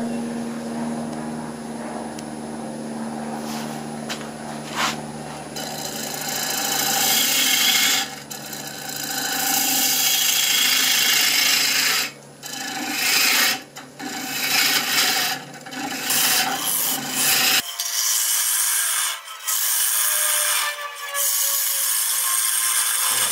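Wood lathe motor humming, then from about five seconds in a turning tool cutting into the spinning face of a large Fijian mahogany bowl blank: a rough, hissing scrape of wood being cut, with short breaks.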